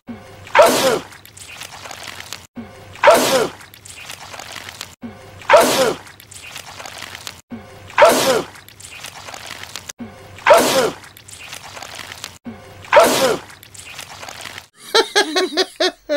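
A man's wet sneeze repeated as a loop, six times about every two and a half seconds, each a sudden loud burst with a falling 'achoo'. Near the end a different, higher voice starts in quick pulsing syllables.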